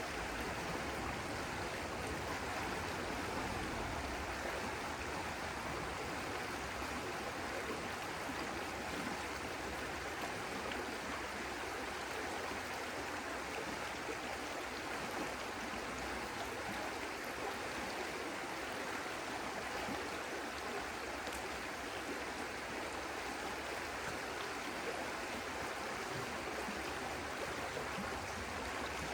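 Stream water flowing, a steady, even rush that doesn't change.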